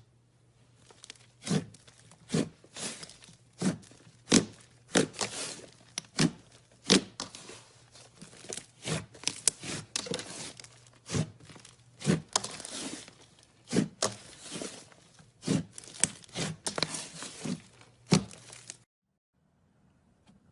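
Slime being worked: a run of sharp, sticky crackling snaps and pops, about one or two a second, which stops shortly before the end.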